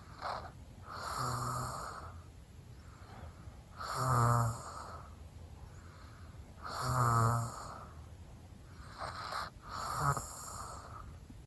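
Snoring: four loud, rasping snores about three seconds apart, with a shorter, softer snort just before the first and last of them.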